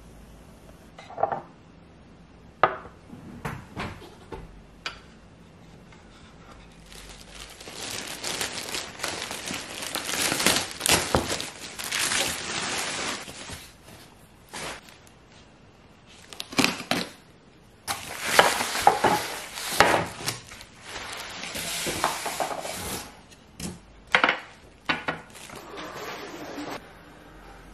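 Kitchenware being handled: dishes and utensils knocking and clinking, with two longer stretches of steady noise in between.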